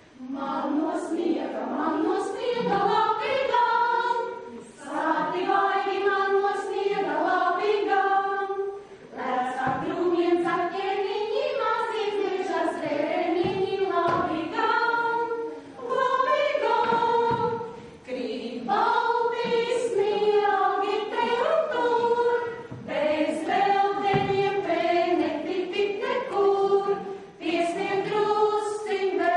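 A group of voices singing a song together, unaccompanied or nearly so, in phrases of a few seconds with short breaths between lines.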